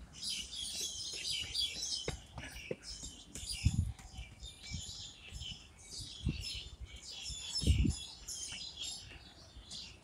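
Many small birds chirping and twittering together in the trees, a dense, busy chorus. A few low bumps, about three, stand out as the loudest moments.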